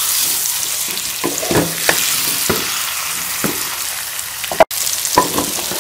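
Marinated chicken pieces sizzling in hot ghee with fried onions in a karahi, a steady hiss, while a wooden spatula stirs them with several short scrapes and knocks against the pan. The chicken is being browned until its colour changes.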